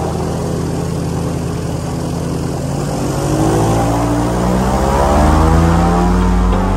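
Airboat engine and propeller running, rising steadily in pitch as the throttle opens from about three seconds in.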